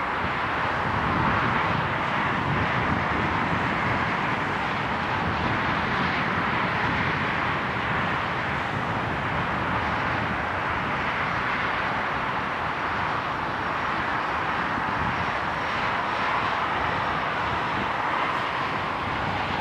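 GE C36-7i diesel-electric locomotive's diesel engine running, a steady unbroken roar with no strokes or breaks.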